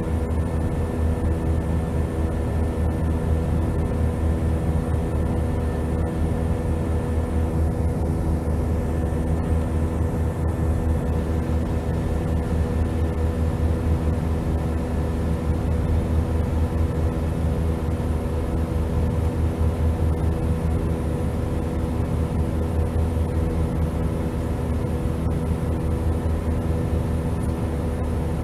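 Steady cabin drone of a jet airliner in cruise flight: engine and airflow noise heard inside the cabin, a deep rumble with several steady hum tones over it, unchanging throughout.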